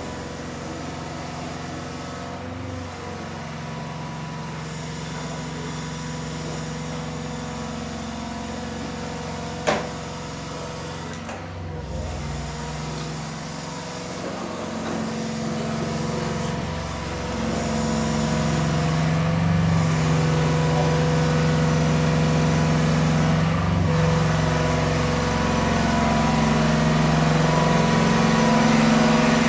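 A pile driving rig's engine running steadily and growing louder just over halfway through, as if revving or working harder. There is one sharp click about a third of the way in.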